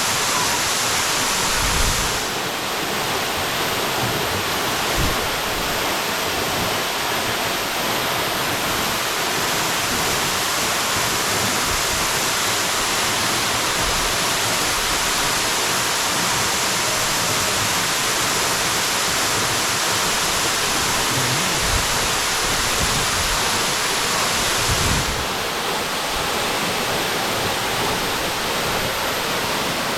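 Waterfall plunging into a pool: a steady, loud rush of falling water.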